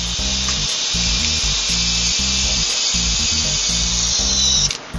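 Small brushed DC motor of an antique Honey Bee electric RC helicopter running on 3 volts for its break-in, giving a steady high whine. The whine dips slightly in pitch and then cuts off suddenly near the end.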